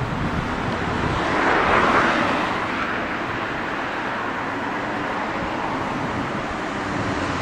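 Outdoor street noise, a steady rush like passing traffic, swelling briefly about one to two seconds in as something goes by.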